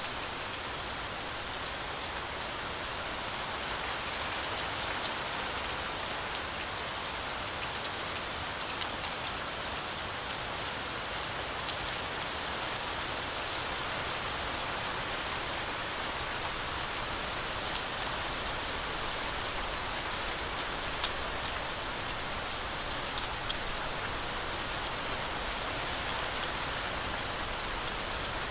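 Heavy, steady rain falling on a forest canopy, a continuous hiss with scattered individual drop ticks.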